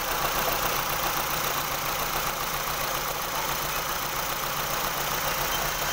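Renault Mégane II 1.6-litre 16-valve petrol engine idling, heard close in the open engine bay, with a fast, even ticking. The owner says the engine still shakes and runs rough even after a new head gasket, ignition coils and spark plugs.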